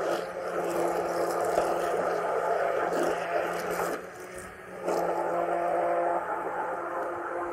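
Electric mixer running in a bowl of egg, sugar and vanilla custard, its motor humming steadily as it beats air in to make it fluffy. It stops for under a second about four seconds in, then starts again.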